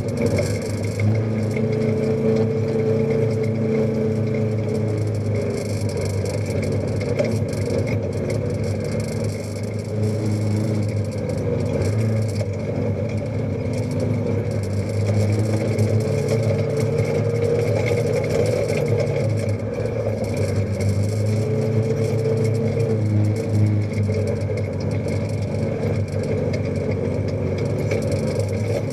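Side-by-side UTV engine running as it is driven slowly along a dirt trail, its pitch rising and falling a few times with the throttle.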